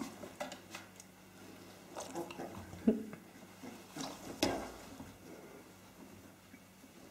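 Nineteen-day-old Australian Kelpie puppies play-fighting: short low puppy growls and grunts, the loudest a little before three seconds in, then scuffling with a couple of sharp knocks around four seconds. It goes quieter after that.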